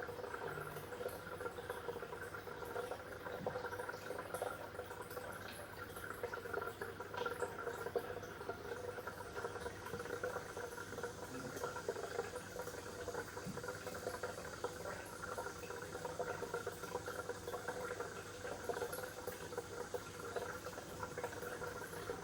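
Water bubbling continuously, with many small pops and no pauses.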